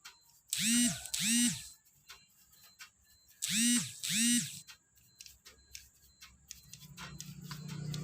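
A 7 hp outboard motor being pull-started: four quick pulls of the recoil starter in two pairs, each a brief whirr that rises and falls in pitch. Near the end a steady running sound builds, the engine coming up to run after its repair from being swamped.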